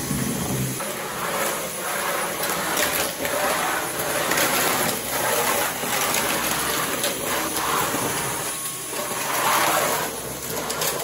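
Cordless stick vacuum running as its floor head is pushed back and forth over a bare concrete floor, the noise swelling and easing with each stroke.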